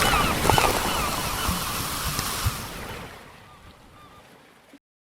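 A steady rushing noise like surf with short, repeated bird calls over it, fading away over about three seconds until it is gone.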